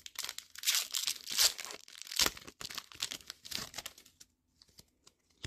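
Foil Pokémon trading-card booster pack being torn open and its wrapper crinkled: a run of loud rustling tears that dies down about four seconds in.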